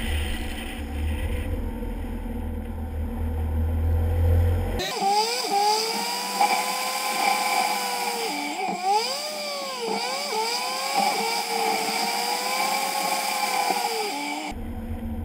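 Low rumble of road and wind noise, then about five seconds in an abrupt change to a high engine whine that rises and falls in pitch with the throttle, dipping sharply twice near the middle. Near the end the low rumble returns.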